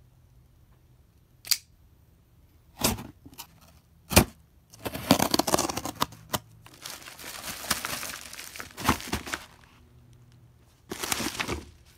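Packing tape on a cardboard shipping box being slit and torn open. There are a few sharp knocks of the cardboard being handled, then rustling of the opened box's plastic packaging.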